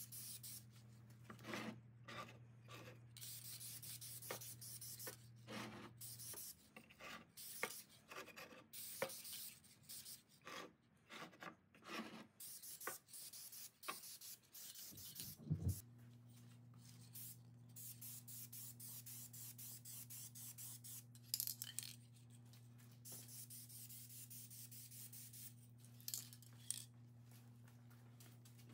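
Aerosol spray can of finish hissing in short and longer bursts, with rubbing and handling noises between them. A steady low hum runs underneath and cuts out for several seconds midway.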